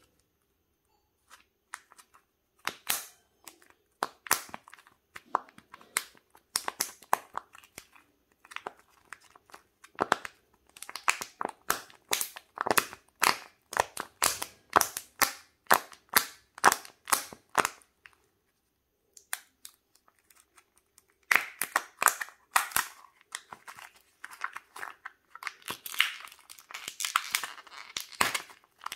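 Hard plastic surprise-egg capsule being twisted and pulled open by hand, giving many sharp plastic clicks and snaps, followed by a denser stretch of crinkling in the last third.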